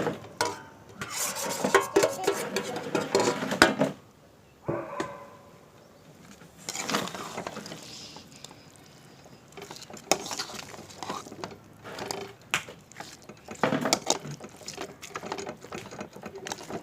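A metal spoon clattering and scraping against a cooking pan as fried chicken pieces are added to the masala and stirred in. The clatter is busiest for the first few seconds, eases off, then returns as scattered clinks and scrapes.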